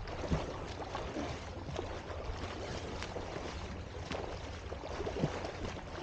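Sea water splashing and sloshing as a swimmer kicks and strokes close by, with wind rumbling on the microphone.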